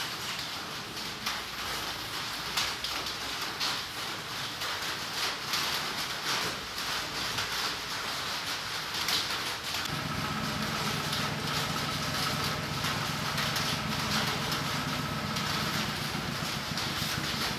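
Outdoor ambience of dense pattering and crackling with many small taps. About ten seconds in, a steady low motor-like hum joins and holds.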